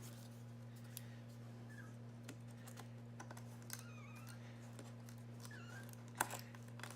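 Faint scattered clicks and taps from handling a RAM memory module as it is pushed into a 2017 iMac's memory slot, with a sharper click about six seconds in, over a steady low hum.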